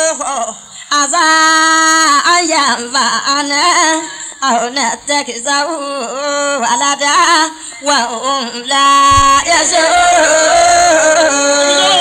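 A voice singing an unaccompanied, ornamented chant in long held notes that waver and bend, in several phrases with short breaks between them.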